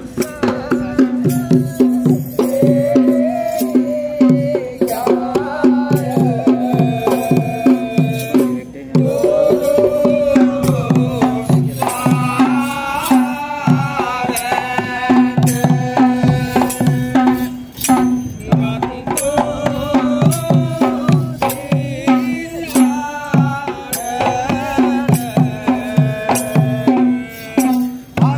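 Music: a melody over a steady drone, with regular drum strokes throughout.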